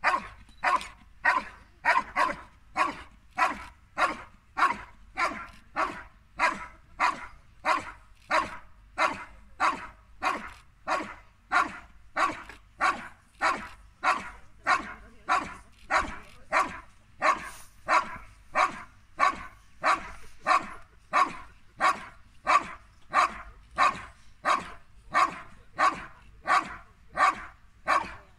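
A dog barking steadily and rhythmically at a helper hidden in a blind, about one and a half barks a second without a break: the hold-and-bark of IGP protection work, where the dog guards the found helper and barks until the handler comes.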